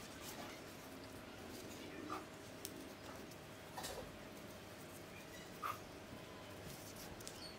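Banana leaves rustling and crinkling as they are rolled and folded by hand to wrap steamed pumpkin cakes, with a few short, high squeaks spaced a couple of seconds apart.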